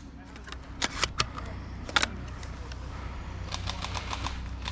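Sharp snaps of airsoft gunfire, three close together about a second in and one more near two seconds, followed by a run of lighter clicks, over a steady low rumble.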